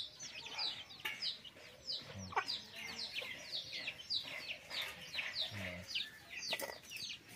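Small birds chirping: many short, high calls, each falling in pitch, several a second. A few sharp clinks of a metal ladle against steel pots and plates come in between.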